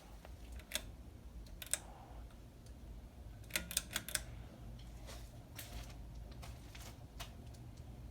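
Hampton Bay Minuet II ceiling fan running on low with a steady low hum and scattered light clicks, several in quick succession about three and a half seconds in. The fan's blade brackets are warped and make it wobble badly.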